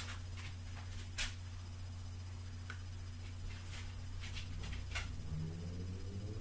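Faint scattered clicks from a plastic syringe being handled and its plunger drawn back to suction urine through a dog's catheter, over a steady low hum.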